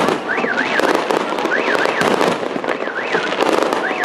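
Fireworks going off in a dense stream of rapid pops and crackles. Over it, a warbling electronic tone rises and falls twice, repeating about every second.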